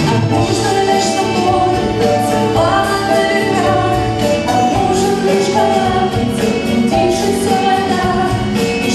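Live band music with a woman singing lead into a microphone over drums and accompaniment, with more than one voice singing.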